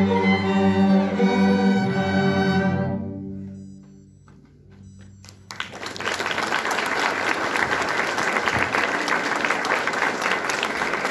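A student string orchestra of cellos and violins holds a final chord that fades out about three seconds in. After a short lull, the audience breaks into steady applause about five and a half seconds in.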